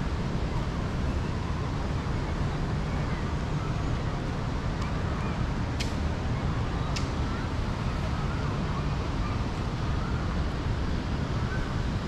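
Steady outdoor city ambience, a continuous low rumble, with two short sharp clicks about halfway through.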